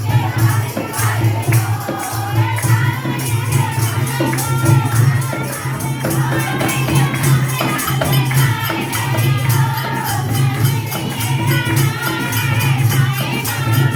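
Devotional bhajan singing over loud music, with a steady jingling beat from tambourine-like percussion.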